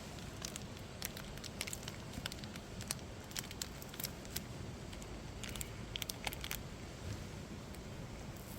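Irregular sharp crackles and clicks over a steady low rumble.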